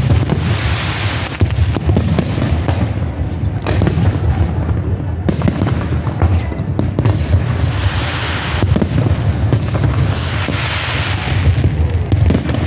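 Fireworks display: a steady run of shell bursts and booms over a continuous low rumble, with bouts of crackling about a second in and again around eight and ten seconds in.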